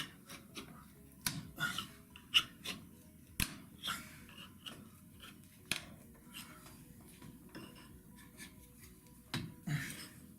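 Screwdriver prying nails out of a wooden chair frame: scattered metallic clicks and scraping taps, with a few sharper knocks.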